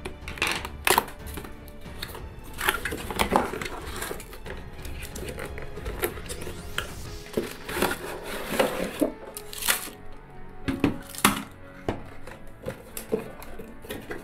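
A cardboard box being opened by hand: irregular scrapes, rustles and knocks as the red card packaging is pulled apart and a hard plastic display base comes out. Background music plays underneath.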